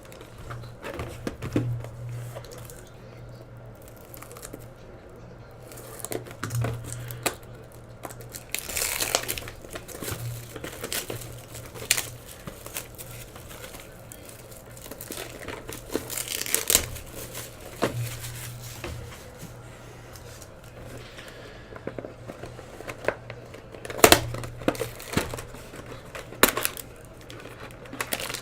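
Plastic shrink wrap and card-pack wrappers being torn open and crumpled by hand, in irregular crinkling bursts with small clicks of handling, over a steady low hum.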